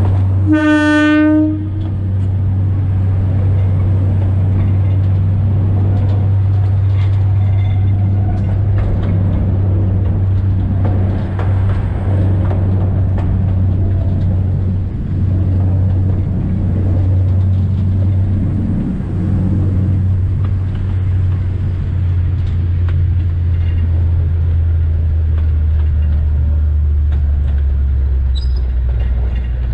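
Alishan Forest Railway diesel train sounding its horn once, a single blast of about a second, shortly after the start, over the steady low drone of its engine running on the narrow-gauge line. Near the end the engine drone drops lower as the train approaches a station.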